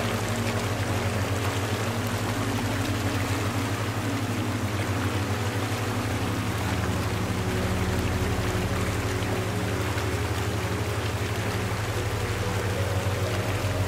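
Steady rushing noise like flowing water, layered over a low held synth drone whose notes shift about six seconds in.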